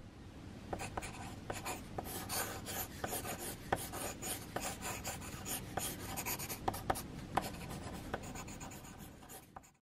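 Pencil sketching on a sheet of paper: continuous scratchy strokes with frequent sharp ticks as the lead lands and lifts, stopping suddenly near the end.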